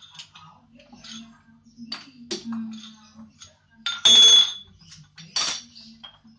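Metal clinks and clanks as tools and a freshly cut pipe section are handled on a lathe. A loud ringing clang comes about four seconds in and another sharp clank about a second later, over a low steady hum.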